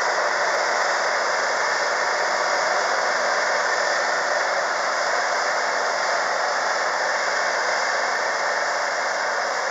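Kubota Lexia MR1000 diesel tractor working under load, its PTO driving a rotary tiller through crop stubble: a steady, even drone of engine and turning tiller with no change in pace.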